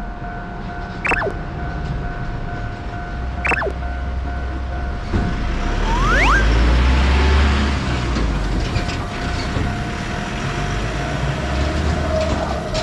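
Railroad crossing warning bell ringing in its steady repeating electronic tone while a train rumbles past, the rumble loudest in the middle. A falling pitch sweep sounds twice in the first few seconds, and a rising glide comes about six seconds in.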